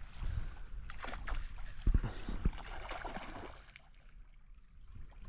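Water sloshing and gurgling, with a few dull knocks, the loudest about two seconds in. It dies down in the second half.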